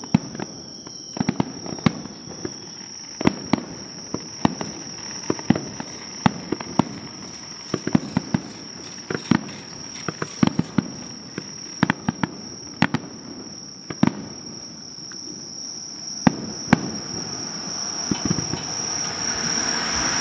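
Aerial fireworks shells bursting in an irregular series of sharp bangs, several a second at times, building to a denser crackling near the end.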